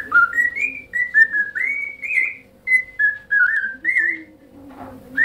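Pet parrot whistling a tune: a run of clear, pure whistled notes stepping up and down in pitch, breaking off about four seconds in and starting again at the very end.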